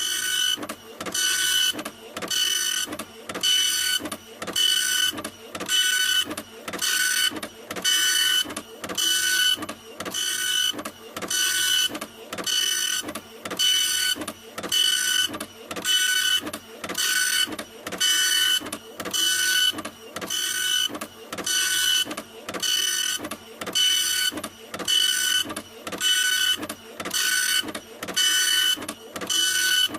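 A printer running in a steady rhythm of mechanical strokes, about one a second, each with a high, steady motor whine over a rasping hiss.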